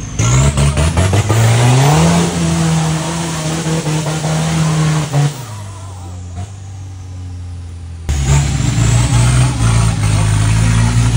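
Off-road Toyota Hilux race truck's engine revving hard: it rises in pitch over the first couple of seconds and holds high, drops back about five seconds in, then picks up sharply again about eight seconds in.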